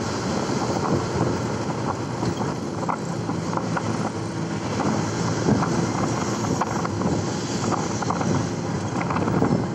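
Steady engine and road noise of a moving vehicle heard from inside, with wind buffeting the microphone and frequent small rattles.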